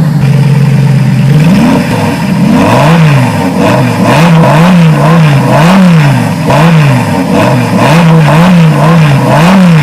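Engine revved over and over in quick throttle blips, its pitch climbing and dropping about once a second after a steady idle-like note at the start.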